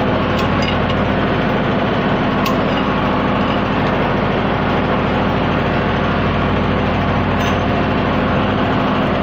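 A heavy engine running steadily at idle, with an even low hum that does not change, and a few light clicks over it.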